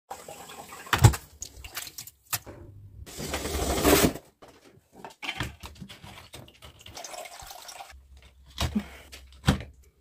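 Water running out of an Electrolux front-loading washer's drain pump filter opening into a plastic tray, with sharp knocks and clicks of the filter cap and tray being handled. A rush of water builds for about a second, about three seconds in. It is water the machine failed to pump away, shown by error E20, a drain fault.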